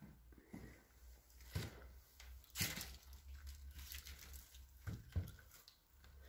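Footsteps crunching over plaster debris on a floor: a few separate steps and crunches, the loudest about two and a half seconds in, over a low rumble.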